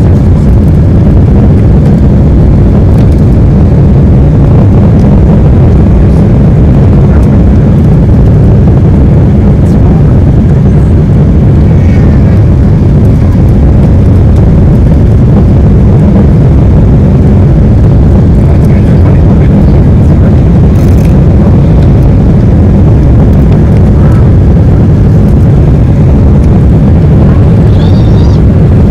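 Steady low rumble of a Boeing 777-300ER's GE90 engines and airflow, heard from inside the passenger cabin.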